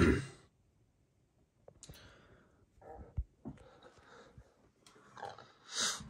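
Close handling noise: hands and camera brushing and rubbing around a metal fan. There is a loud rub at the start, soft irregular rustles and taps, and another loud rub near the end. The fan motor is not running.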